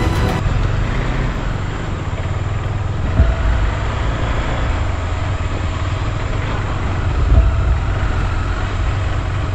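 KTM 390 Adventure's single-cylinder engine running steadily while riding, under a heavy low rumble, with two louder knocks about three and seven seconds in.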